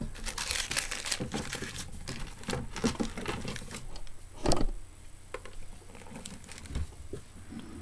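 Rummaging for a tool among small objects: rustling and light clattering, with one louder knock about halfway through.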